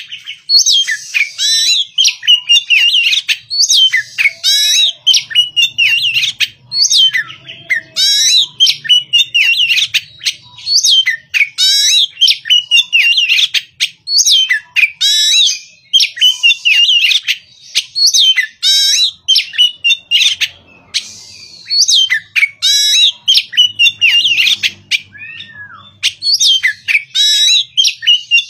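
Caged oriental magpie-robin (kacer) singing loudly: rapid phrases of varied whistles, slides and chatters, each about a second long, repeated with short breaks.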